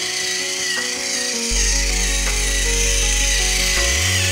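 Plarail Toby toy train's small battery motor and plastic gearbox whirring steadily as it runs, under background music. A deep bass line joins the music about a second and a half in.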